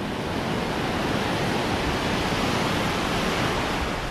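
Ocean surf washing up the beach: a steady hiss of foaming water that swells a little midway.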